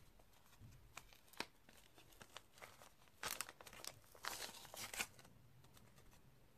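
Gift wrapping paper being picked at and torn open by hand: a few faint clicks, then two short bouts of crinkling and tearing about three and four and a half seconds in.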